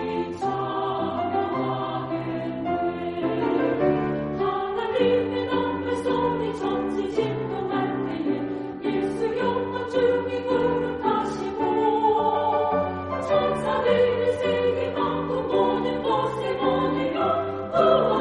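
A women's choir singing a sacred choral piece, sustained chords moving from note to note over low accompaniment.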